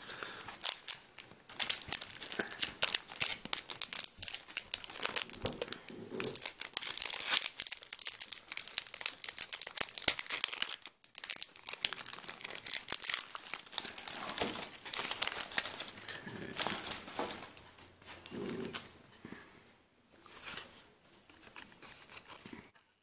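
Crinkling and tearing of a foil Yu-Gi-Oh booster pack wrapper as it is opened and handled along with the cards: a dense run of crackles, with a brief break about halfway and thinning out near the end.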